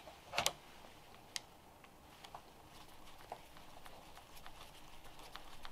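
Faint scattered clicks and taps of small-parts handling: a wire pushed into a connector block and a small screwdriver working its terminal screw. The clearest click comes about half a second in.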